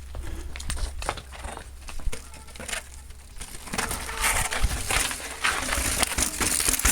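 Mountain bike rolling down over rock, its tyres crunching on grit with scattered sharp knocks and clatters; the noise thickens into a steady rush over the second half.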